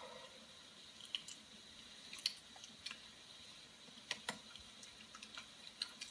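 Faint, scattered small clicks and ticks, about a dozen irregularly spaced, over a quiet hiss with a thin steady high tone.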